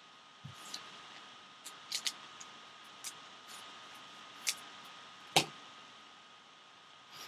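Trading cards and plastic card holders being handled on a table: a scattering of light clicks and taps, with the loudest knock about five seconds in, over a faint steady high hum.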